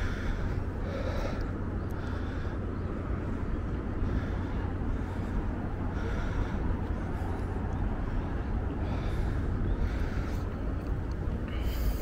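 A person breathing hard while climbing stairs, a short hissing breath every one to three seconds, over a steady low rumble.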